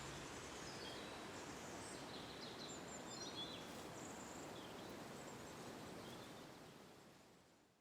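Faint outdoor ambience with a steady hiss and a few brief high bird chirps, fading out near the end.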